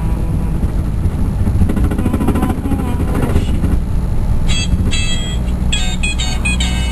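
A car driving, heard from inside the cabin as a steady low rumble of engine and road noise. From a little past halfway in, short bursts of high, bright tones come and go over the rumble.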